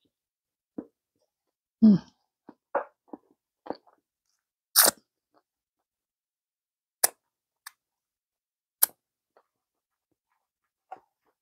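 Close-miked mouth sounds of a person eating a burger: chewing, wet lip smacks and a few sharp clicks, spaced irregularly. There is a louder low, pitched mouth sound about two seconds in.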